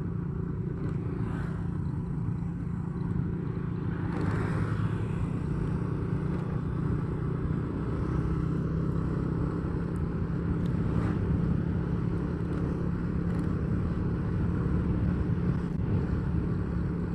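Steady drone of a moving road vehicle's engine with road noise, heard while travelling along the road, with a brief louder swell about four seconds in.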